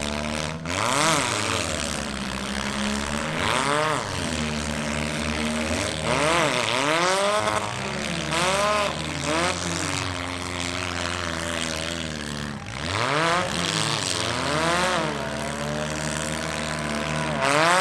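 Several demolition derby cars' engines revving hard and falling back, over and over, their rising and dropping pitches overlapping as the cars spin their wheels in the dirt.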